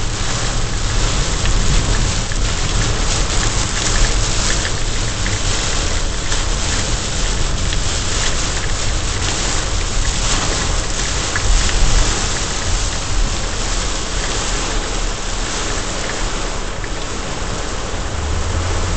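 Heavy rain drumming on a car's roof and windshield, heard from inside the cabin, over the steady low rumble of the car driving. The sound stays dense and even throughout.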